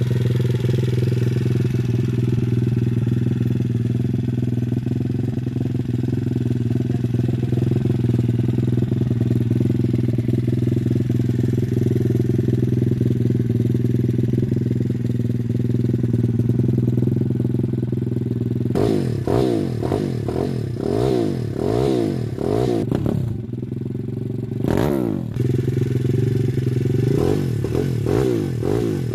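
Single-cylinder four-stroke engine of a 170cc Detroit Welsh Pit Bike idling steadily. About two-thirds of the way through, it is revved in a quick series of throttle blips, each rising and falling, with a short pause and then more blips near the end.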